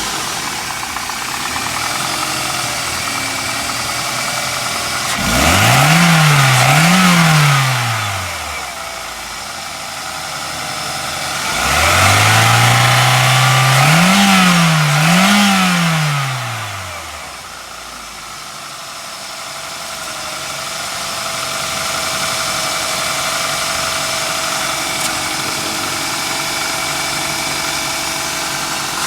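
Toyota Corolla XLi petrol engine idling steadily, revved up twice by hand. Each time it is a double blip: the engine note climbs, dips briefly, climbs again and then falls back to idle.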